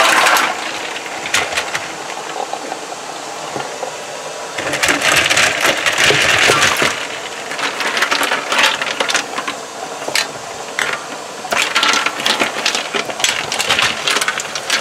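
Ice cubes clinking and rattling in water against a black enamel pot and a stainless steel sink, with sloshing water, as blanched pears are turned in an ice-water bath to cool. The clicks are scattered throughout, with two longer stretches of rattling and splashing, about five seconds in and again near the end.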